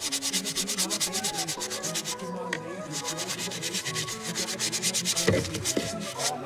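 Stiff-bristled detailing brush scrubbing a car's accelerator pedal in quick back-and-forth strokes, about eight a second. It pauses briefly about two seconds in and stops near the end. Background music plays faintly underneath.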